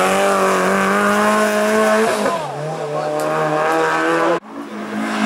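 Race car engine at high revs on a hillclimb, holding a steady pitch, then dropping lower about two seconds in as the driver shifts or lifts. The sound cuts off abruptly near the end and another engine at high revs comes in.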